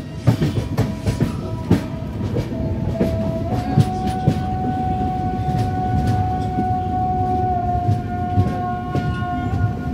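Train running through a junction, heard from aboard: steady rumble with the wheels clacking and knocking over rail joints and points. A long steady tone joins about three and a half seconds in and holds on.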